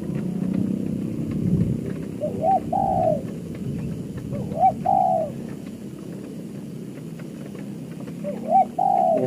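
Spotted dove cooing three times, each call a short rising note followed by a longer held coo, over a steady hiss of light rain.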